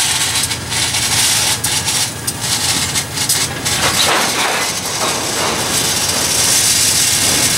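EMD diesel locomotives of a multi-unit lashup rumbling steadily as the train rolls slowly past, with a hiss over the top. A run of sharp knocks comes in the first few seconds.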